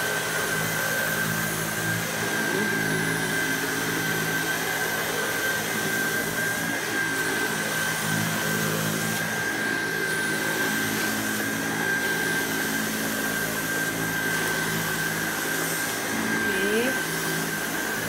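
SEBO electric powerhead on a central vacuum hose, running steadily as it is pushed over carpet, with a high steady whine.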